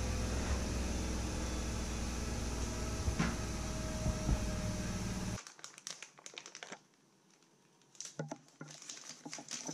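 Power drill running steadily while boring pilot holes for the toilet fixings; it cuts off abruptly about five seconds in. After a short near-silence come a plastic packet crinkling and small metal screws and brackets clicking together.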